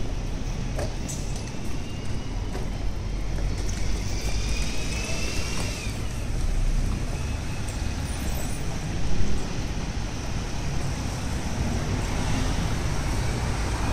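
City road traffic: a steady rumble of cars and buses passing, with a whining tone that rises and then falls around five seconds in and a short louder noise about nine seconds in.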